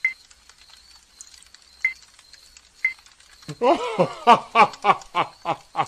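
Faint crackling of a campfire, with a few short sharp blips. About halfway through, a man bursts into loud laughter: a run of short 'ha' bursts about three a second, each dropping in pitch.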